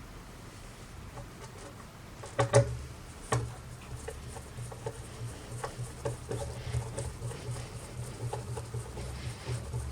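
Handling noises: a few sharp clicks and knocks about two and a half seconds in, then a run of small irregular clicks over a low hum.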